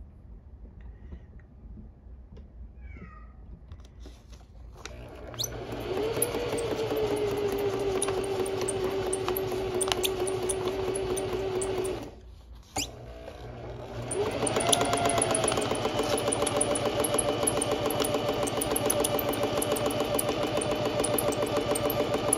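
Electric sewing machine stitching through paper without thread. After a few quiet seconds the motor starts with a steady whine and rapid needle strokes, stops briefly around the middle, then runs again faster with a higher whine.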